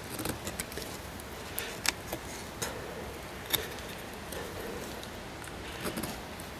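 Fixed-blade bushcraft knife cutting into a thin wooden branch, carving a notch: a handful of short, sharp cuts and scrapes at uneven intervals over a steady background hiss.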